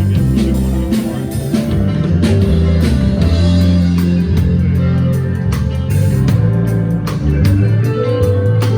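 Band instruments playing together: a bass guitar holding low notes that change every second or so, over drum-kit hits.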